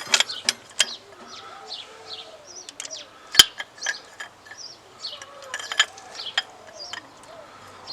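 Birds chirping and a chicken clucking in the background, with a few sharp metallic clicks and clinks from hand tools on the engine; the loudest click comes about three and a half seconds in.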